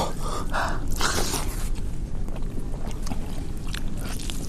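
Eating by hand off a banana leaf: fingers mixing rice and mutton curry, and biting into a mutton leg piece, over a steady hiss.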